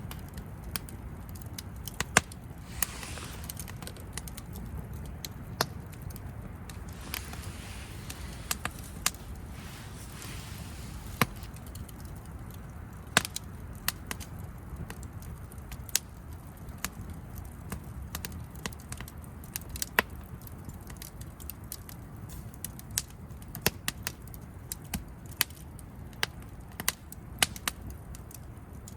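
Wood campfire crackling, with irregular sharp pops and cracks, some loud, over a low steady rumble, and a faint hiss twice.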